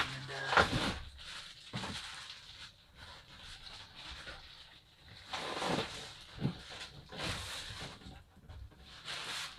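Cardboard packaging rustling and scraping in irregular bursts as a heavy sliding miter saw is wrestled up out of its box.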